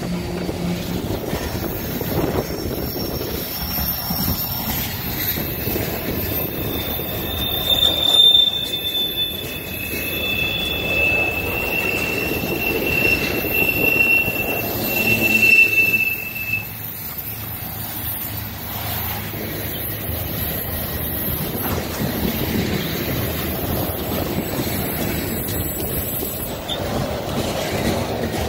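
Freight cars of a long train rolling past close by, a steady rumble of wheels on rail. High-pitched wheel squeal rises and fades about a quarter of the way through and again around the middle, where it is loudest.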